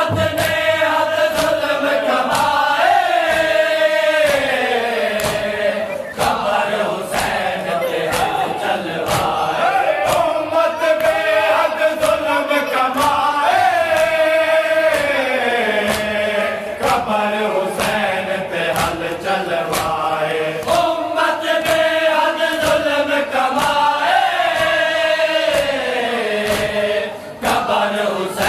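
Men chanting a noha, a Shia Muharram lament, in a repeating melody whose lines fall in pitch about every ten seconds. Sharp slaps of matam chest-beating sound several times a second throughout.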